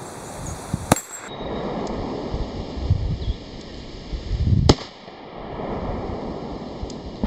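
Two .357 Magnum revolver shots from a Ruger GP100, each a single sharp crack: one about a second in, and a louder one nearly four seconds later.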